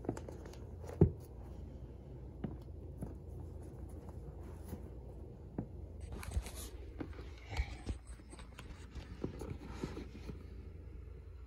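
Handling noise from a phone being picked up and moved: scattered knocks, taps and rustles over a low hum, with one sharp knock about a second in.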